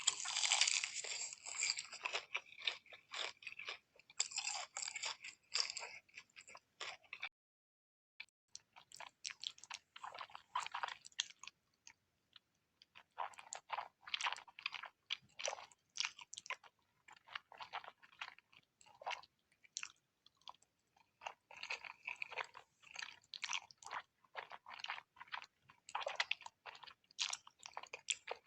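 Close-miked ASMR eating sounds: a person chewing cheesy food, in runs of quick, clicky, wet chews and bites, with a brief silent pause about seven seconds in.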